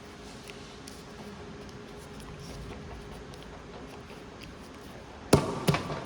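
A steady low hum, then two sharp knocks in quick succession near the end as the end of a steel pipe is being closed off and handled for an argon purge.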